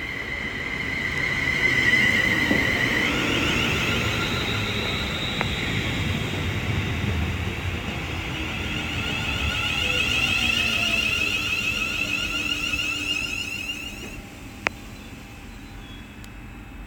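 Class 350 Desiro electric multiple unit moving at the platform, its traction inverters giving a high electric whine that steps up in pitch about three seconds in, holds, then fades in the last few seconds.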